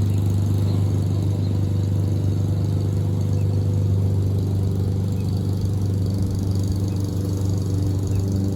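Honda engine of a 22-inch Toro Recycler walk-behind mower running steadily at a constant speed while mowing grass.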